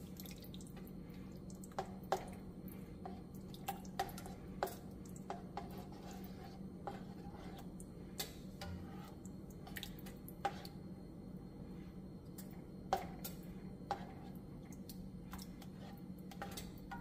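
Black plastic slotted spatula stirring chicken pieces in thick curry sauce in a nonstick skillet: irregular sharp clicks and soft scrapes of the spatula against the pan, over a steady low hum.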